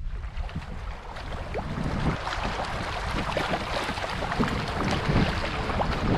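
Fast, choppy river water rushing and splashing around an open canoe as it is paddled, with paddle strokes dipping and splashing. Wind buffets the microphone. The rush of water builds over the first couple of seconds.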